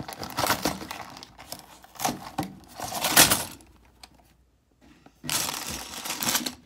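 Small plastic LEGO pieces rattling and clinking in their package as it is opened and tipped out, with packaging crinkling. The loudest clatter comes about three seconds in, then a short pause before another burst of clatter near the end.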